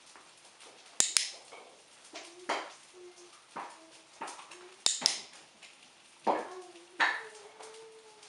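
Dog-training clicker clicked twice, once about a second in and again about five seconds in, each a sharp double click from pressing and releasing it, marking the dog for getting into heel position. Between the clicks come softer knocks and shuffles of the dog's paws and the handler's feet on the floor.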